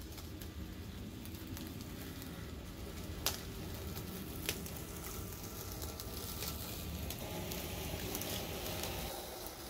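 Homemade RC lawn mower running through grass: a salvaged 775 drill motor spins 3D-printed blades on a trailer pushed by an RC crawler, giving a crackly hiss over a low rumble, with two sharp clicks a little over a second apart. The sound changes abruptly near the end.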